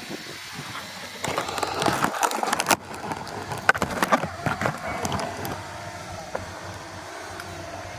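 Loud rattling clatter full of sharp knocks that cuts off abruptly about three seconds in, followed by a few scattered knocks and a lower steady rumble.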